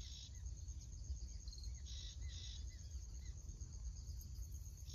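Outdoor ambience with a steady, rapidly pulsing high insect trill and a run of short bird chirps in the middle, over a constant low rumble.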